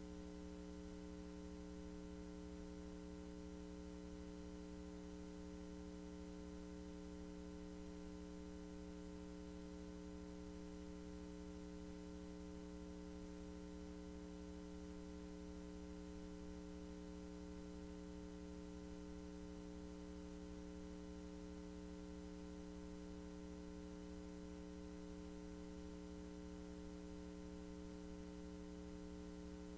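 Steady electrical hum, several constant pitches held unchanging over a faint even hiss.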